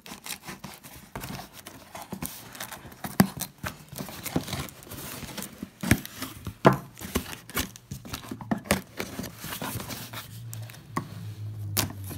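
A knife cutting through packing tape on a cardboard box, with the tape peeling away and the cardboard flaps being pulled and handled: a run of irregular sharp scrapes, clicks and tears.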